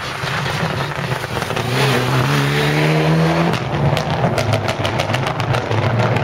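A rally car's engine running hard, its note climbing briefly, followed in the second half by a rapid run of sharp cracks over the engine.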